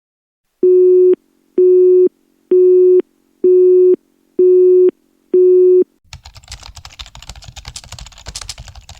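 Six identical electronic beeps of about half a second each, roughly one a second and steady in pitch, like a telephone busy signal. After them, about two-thirds of the way through, comes an irregular crackling rustle.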